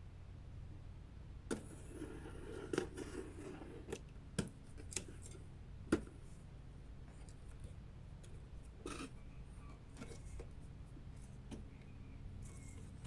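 Unboxing handling sounds: packaging rustling for a couple of seconds, then scattered sharp taps and clicks of parts being handled and set down, the loudest about six seconds in.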